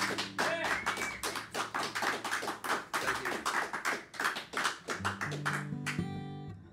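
Two acoustic guitars playing a fast flatpicked instrumental passage of rapid single notes, closing about five seconds in on a final chord that rings and fades away.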